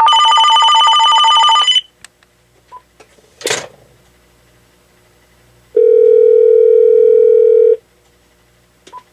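Electronic tones from an AT&T 7720 cordless phone. At the start, a loud warbling ring alternates rapidly between two pitches for about two seconds. About six seconds in, a steady lower beep lasts about two seconds. A brief click falls between them.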